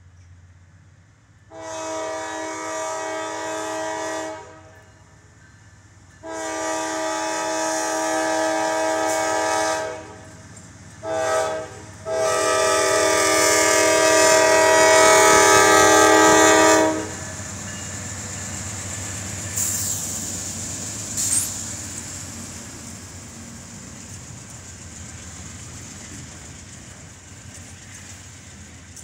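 Freight locomotive air horn sounding the grade-crossing signal: two long blasts, a short one, then a final long blast, the loudest. The train then rolls through the crossing, wheels running over the rails, with two brief high squeals in the middle of the pass.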